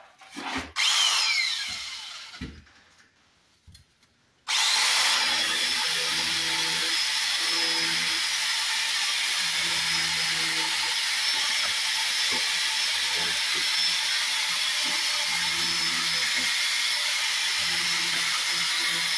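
Handheld electric saw cutting into the face of damaged old bricks, recessing them to take brick slips. A short burst about a second in winds down, then from about four and a half seconds the saw runs steadily through the brick.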